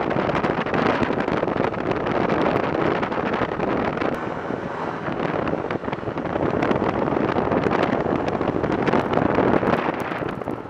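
Wind buffeting the microphone over the steady running of a snowmobile under way, with scattered small knocks and rattles that come more often near the end.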